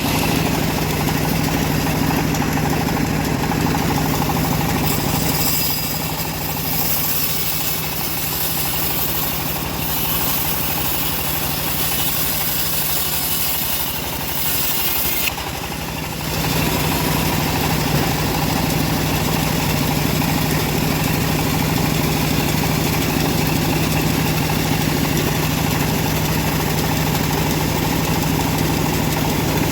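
A wood bandsaw (sawmill) runs with a steady low hum. From about five seconds in, for roughly ten seconds, the hum drops and a high hiss rises as the blade cuts through the wood, then the steady running sound returns.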